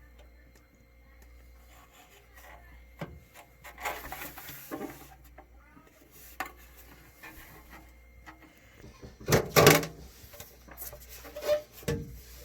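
Handling noises: scattered knocks, scrapes and rubbing, with a louder cluster of knocks about nine and a half seconds in and another near the end.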